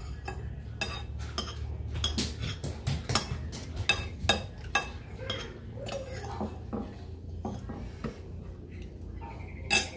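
Metal spoon clinking and scraping against a ceramic soup bowl during eating, a run of short, sharp clinks that come thickest between about two and five seconds in, over a low steady hum.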